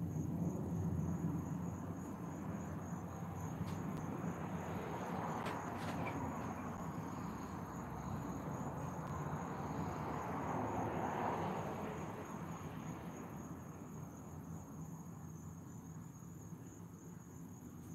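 Crickets trilling in a steady, high, finely pulsing tone. Under them a low hum and a broad rushing noise swell through the middle and fade toward the end.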